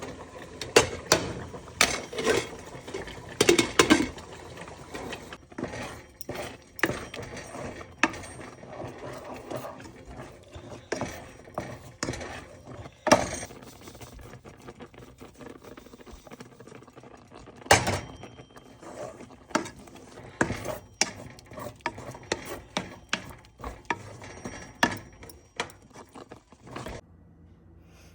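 Kitchen utensils clinking and knocking against cookware in an irregular run of sharp strikes that stops abruptly near the end.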